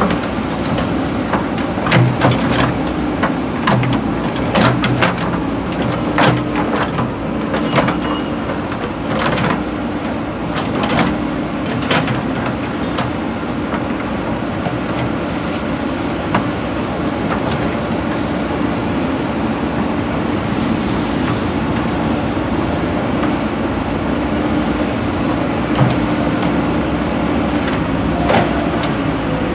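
JCB 3DX backhoe loader's diesel engine running steadily under work, with repeated metallic clanks and knocks from the bucket and arm over the first half, fewer later.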